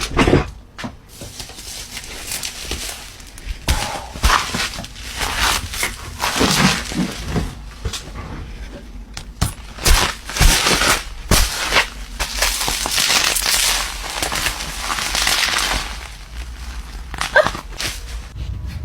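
Irregular crunching, scraping and clicking of hard tablet parts and tools being worked during a screen-panel replacement, in uneven bursts with sharp clicks scattered through.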